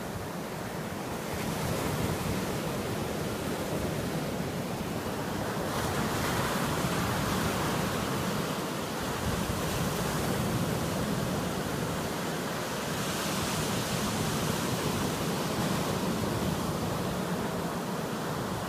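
Sea surf breaking and washing up over a sandy beach: a continuous rush of water that swells each time a new breaker comes in, three times over.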